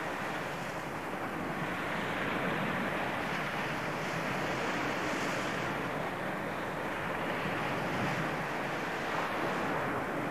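Steady rushing noise that swells and eases every few seconds.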